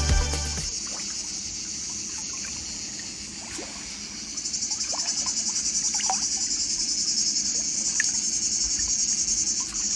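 Cicadas singing: a shrill, steady high buzz that turns into a rapid pulsing from about four seconds in. Music fades out in the first second.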